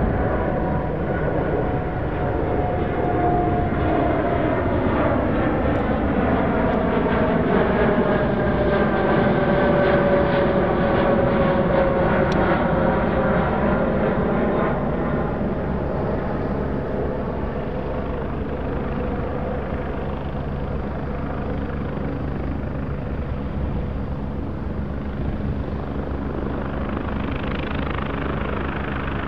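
Jet noise from a Boeing 787-8 Dreamliner's two GEnx-1B turbofans at takeoff-climb thrust as the airliner passes overhead and climbs away. A whining fan tone slides steadily down in pitch over the first half while the roar rises to its loudest about ten seconds in, then slowly fades.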